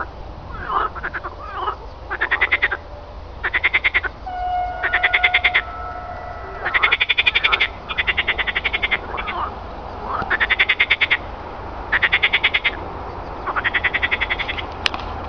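Pond frogs croaking in chorus: rapid pulsed croaks, each well under a second long, one after another every second or two. A brief steady whistle sounds about five seconds in.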